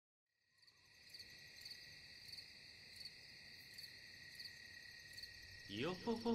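Faint crickets chirping, a steady high trill fading in about half a second in. Near the end a rising glide leads into a held, sung-sounding note as music begins.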